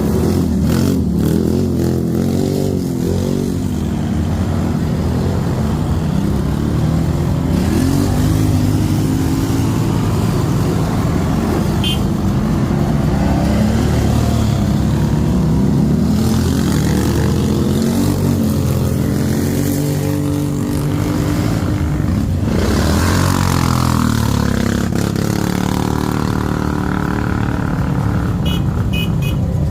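ATV engine running under way, its pitch rising and falling as the throttle is worked.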